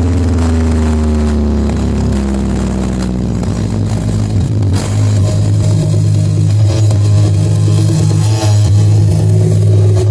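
Loud music with heavy, sustained bass, played at full blast through a large subwoofer sound system. In the first two seconds several pitched tones slide downward over the deep bass, which then holds steady.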